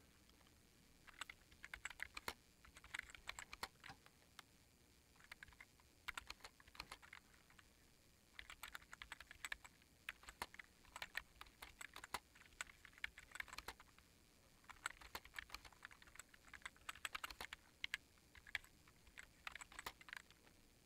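Typing on an old iMac keyboard: faint runs of quick keystrokes broken by short pauses.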